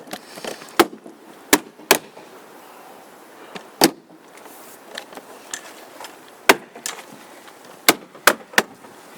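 Hammer tapping clips into place on a car door's inner mechanism: about eight sharp single knocks, spaced unevenly with pauses of up to a few seconds between them.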